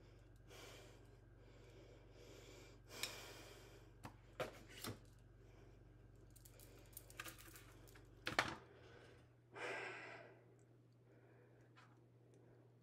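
Quiet food-prep sounds: a few light clicks and taps of a knife and tomato slices on a cutting board and plate, with several soft breaths. A faint low hum stops after a louder click about eight seconds in.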